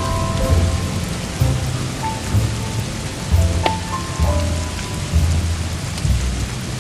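Steady heavy rain with rolling thunder rumbling in low swells, and soft jazz with sustained notes playing underneath.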